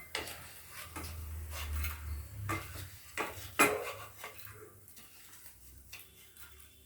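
A spoon scraping and clinking against a steel kadhai and a bowl as fried edible gum is scooped out of the ghee: scattered clinks and scrapes, the loudest about three and a half seconds in, dying down over the last two seconds.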